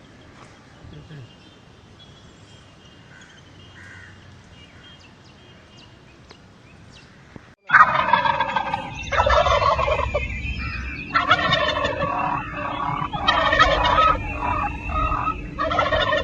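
Turkeys gobbling in about five loud, rattling bouts roughly two seconds apart, starting suddenly about eight seconds in after a stretch of faint outdoor background.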